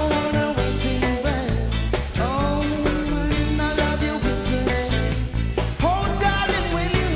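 Reggae-pop song with a steady bass beat and drawn-out sung notes.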